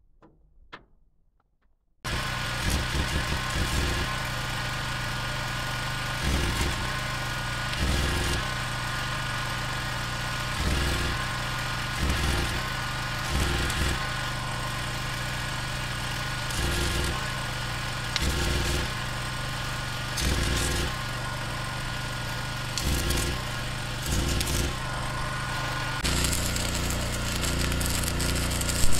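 Arc welding with a flux-core wire-feed welder: a steady crackling arc over a mains hum, swelling every second or two. It starts suddenly about two seconds in, and near the end it changes to the crackle of a 6011 stick-welding root pass.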